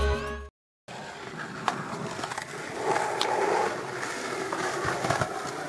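Skateboard wheels rolling on concrete, a steady rumble broken by a few light clicks.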